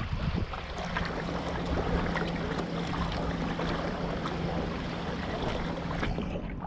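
Water splashing and rushing along the wooden hull of a sailing felucca as it moves through the river. A faint steady hum runs under it from about a second in until near the end.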